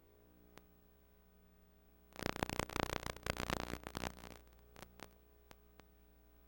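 Faint steady hum from blank videotape playback, broken about two seconds in by roughly two seconds of loud crackling static, then scattered single clicks.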